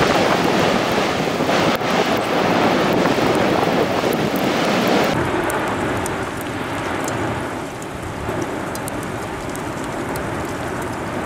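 Steady rushing noise of the Cumbre Vieja eruption's lava fountaining. About five seconds in it drops and becomes duller, with faint crackling above it.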